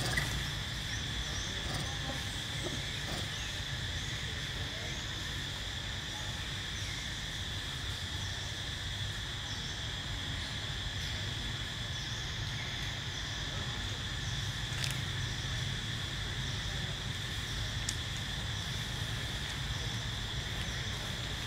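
Continuous chorus of insects droning at one steady high pitch, over a low steady hum.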